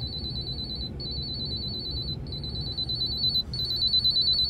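Leak alarm of an automatic water shut-off valve controller sounding: a high-pitched warbling electronic tone in pulses about a second long with short breaks. It has been set off by shorting the leak sensor's leads to simulate a leak.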